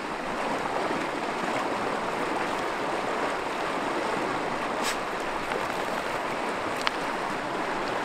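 River water flowing: a steady, even rush of moving water, with two small clicks about five and seven seconds in.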